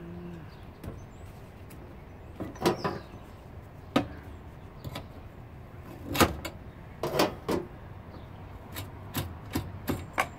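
Metal dishwasher parts clanking and knocking as they are worked loose by hand and with tools: a series of sharp clatters, some with a short metallic ring, the loudest about halfway through.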